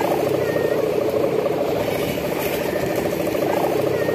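Sendaren kite hummers with mica (plastic film) ribbons droning in the wind overhead: a steady buzzing hum that wavers and swells every couple of seconds, with several hummers sounding together.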